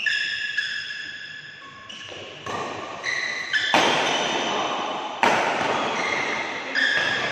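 Badminton rally in a hall: rackets striking the shuttlecock about five times, the loudest hits about four and five seconds in, each echoing in the hall, with high squeaks from players' shoes on the court.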